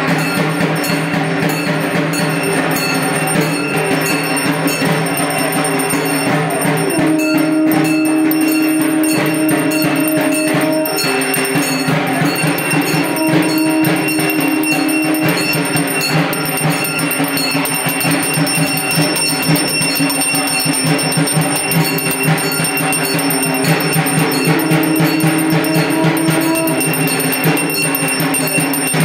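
Temple aarti accompaniment: fast, continuous percussion with bells ringing throughout. A held tone sounds in several stretches over it.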